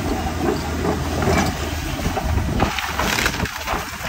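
Hyundai hydraulic excavator's diesel engine running steadily while its attachment breaks up timber and roof-tile demolition debris, with irregular cracking and crunching of wood. A louder rush of noise comes about three seconds in.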